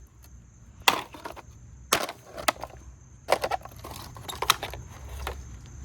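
Irregular sharp knocks and snaps of hard plastic as a Roomba robot vacuum is being broken apart by hand, with a quick cluster of them a little past the middle.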